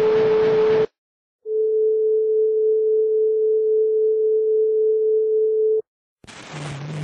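A steady, mid-pitched pure tone. For the first second it plays over hiss, then it cuts out briefly and returns clean and unwavering for about four seconds before stopping abruptly. Near the end, a hissy playback starts up and low hum-like tones come in.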